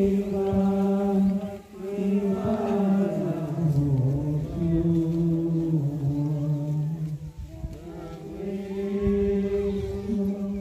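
A crowd of worshippers singing a slow devotional hymn together, in long held notes that step slowly up and down in pitch.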